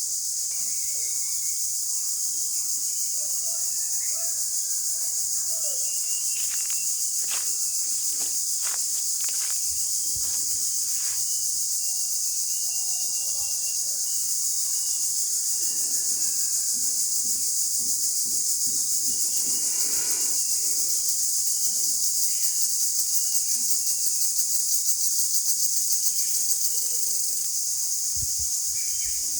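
A dense, steady chorus of insects: a high shrill hiss that never lets up. Short faint chirps and a few scattered clicks sound under it.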